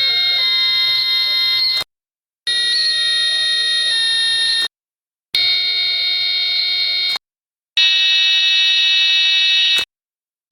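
An electronic alarm or buzzer tone sounding in four separate blasts of about two seconds each, with short silent breaks between them.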